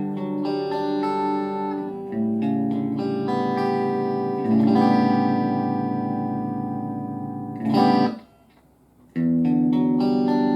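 Electric guitar played through a BOSS Nextone Stage amplifier on its clean channel: chords let ring and fade, changing about two seconds in and again a little after four seconds. Near eight seconds a sharp strum is cut off into a short silence of about a second before the playing starts again.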